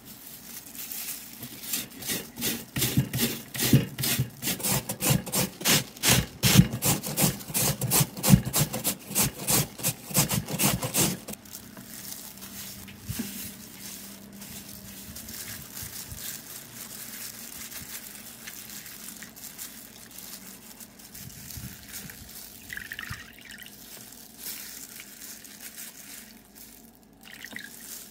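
Raw peeled potato grated on a flat metal grater in quick, regular strokes for about the first ten seconds. Then quieter swishing and sloshing of water as the grated potato is rinsed by hand in a bowl.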